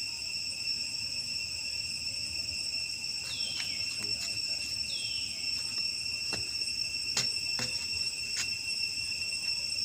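A steady, shrill chorus of insects droning at a fixed pitch. Two short falling calls come about 3 and 5 seconds in, and a few sharp clicks come in the second half.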